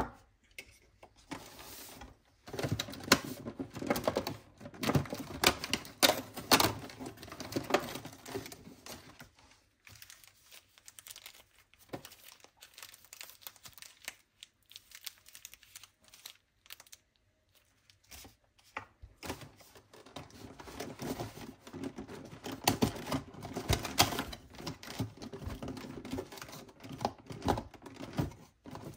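Close-up handling of small gifts from a cardboard advent calendar: plastic wrapping crinkling and long acrylic nails clicking and tapping, with some tearing of paper or cardboard. The sound comes in two busy stretches with a quieter spell of scattered clicks in the middle.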